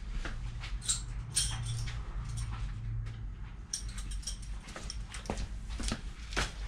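Scattered clicks and light knocks of hand tools and parts being handled, over a low steady hum.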